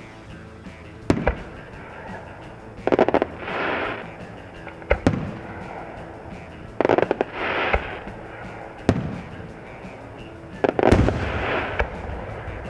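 Aerial firework shells bursting overhead: six sharp bangs about two seconds apart, three of them trailed by a burst of crackling.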